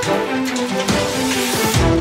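Background music with sustained notes and drum hits, building into a rising swell near the end.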